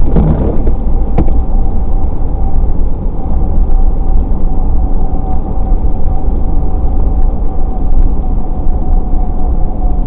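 Car driving on a rain-wet highway: steady road and tyre noise with a low rumble and a thin steady hum. A short swell right at the start and a sharp click about a second in.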